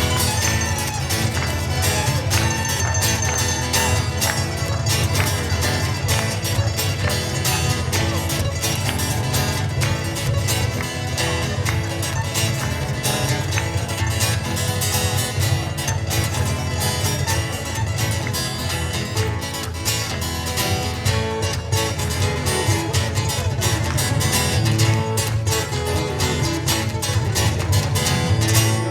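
Live acoustic music on plucked strings from a ukulele duo, a dense run of quickly picked and strummed notes.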